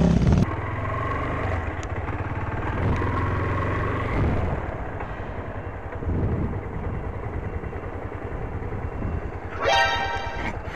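A dirt bike's engine at high revs cuts off abruptly half a second in, followed by a Yamaha FZ25's single-cylinder engine running steadily as it rides along. About a second before the end the motorcycle's horn sounds once, briefly, at a dog crossing the road.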